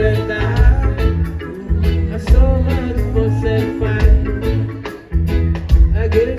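Live reggae from a full band: a heavy bass line with steady drum strokes and pitched instruments over it. The bass drops out briefly about five seconds in.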